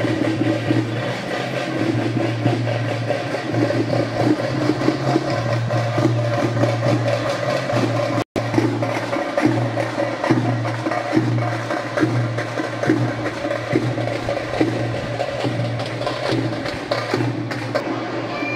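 Percussion music: dense, rapid drum strikes over a steady low hum, with a momentary cut in the sound about eight seconds in.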